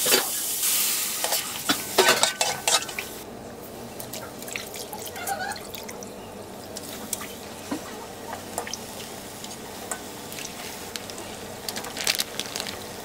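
Mala hotpot paste sizzling loudly in a hot steel wok, scraped and stirred with a metal spatula, for about the first three seconds. After that it is quieter, with scattered small clinks, knocks and wet splashes as broth and vegetables go into the wok.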